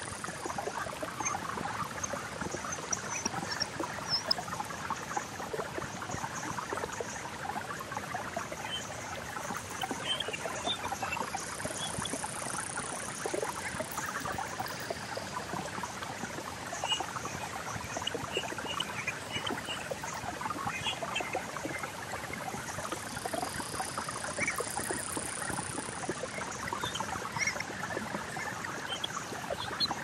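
Synthesized nature soundscape, built from many simple sound waves: a dense, steady trickling texture like a stream. Scattered short chirps sit over it, and a thin high tone swells and fades a couple of times.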